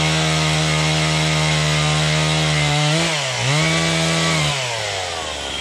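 Chainsaw running at high revs while cutting a felled white cedar. Its pitch dips sharply about three seconds in, picks up briefly, then falls away near the end as the engine comes off the throttle.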